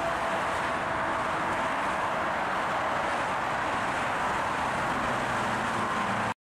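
Dense highway traffic passing beneath, a constant wash of tyre and engine noise, with a faint falling whine of a single passing vehicle early on; it cuts off suddenly at the very end.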